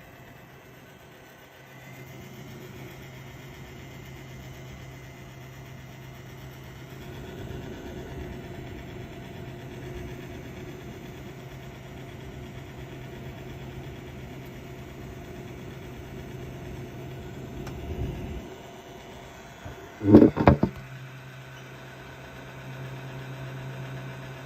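GeForce GTX 1660 OC 6GB graphics card fans running with the abnormal noise the owner is showing: a steady hum with a few faint tones above it. About 20 seconds in, a brief loud clatter of a few knocks.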